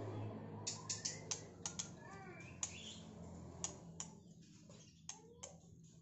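A caged white-rumped shama giving scattered sharp clicks and a few short chirps, about a dozen ticks spread over the seconds, over a low steady hum.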